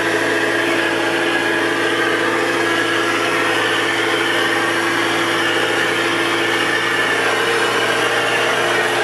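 John Deere loader's engine running steadily, heard from inside the cab.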